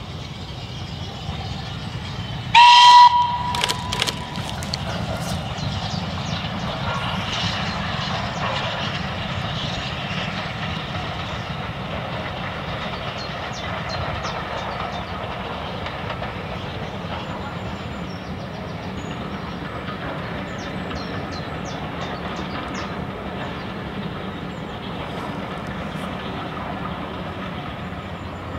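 LSWR M7 class 0-4-4 tank engine's steam whistle sounding one loud blast about two and a half seconds in, followed by a couple of short toots. Then the steady rumble of the steam locomotive and its coaches running past, with clicking of wheels on the track.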